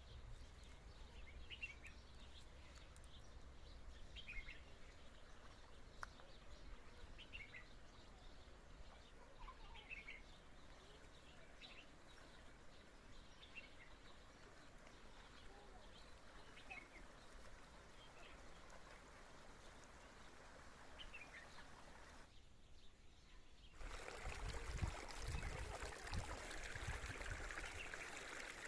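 Faint birds chirping, a short call every second or two, over a quiet hiss. After a brief drop-out near the end, louder running water from a spring comes in.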